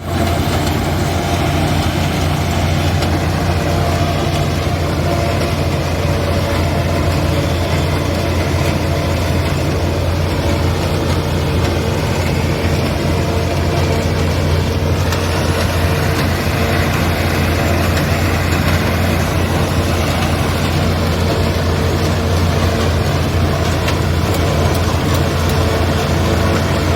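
Heavy farm-machinery engine of a silage harvesting rig running steadily at constant speed: a loud, even low drone with mechanical noise over it.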